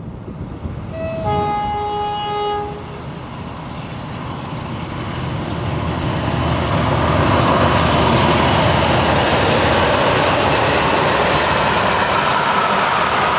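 Two Class 47 diesel locomotives passing at speed with a passenger train. Their two-tone horn sounds about a second in, a short high note then a longer low one, and then the Sulzer V12 engines and the rolling train build up loud and stay loud as the train goes by.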